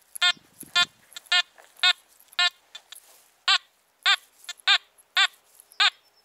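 Metal detector target tones from a Nokta Makro Anfibio Multi in two-tone mode: short beeps, about two a second, as the coil is swept back and forth over a buried aluminium pull tab. The beep pitch drops partway through.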